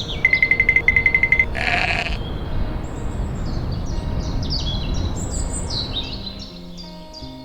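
Farm animal ambience: a high, rapid trill, then a single sheep bleat about two seconds in, followed by a run of small birds chirping. Soft music notes come in near the end.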